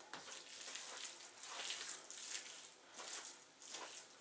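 Sliced raw chicken breast being mixed by hand in soy sauce and sugar on a plastic cutting board: soft, wet squelching that comes and goes irregularly.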